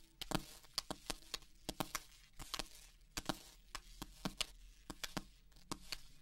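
Footsteps of several people on a hard floor: a string of quiet, irregular taps and clicks, two or three a second.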